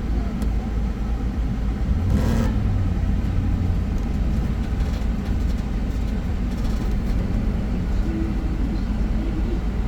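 Motorboat running under way, a steady low rumble, with a brief rush of noise about two seconds in.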